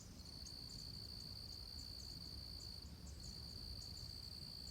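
Insects trilling faintly: a steady high-pitched buzz that stops briefly near the start and again a little under three seconds in, with faint ticking above it.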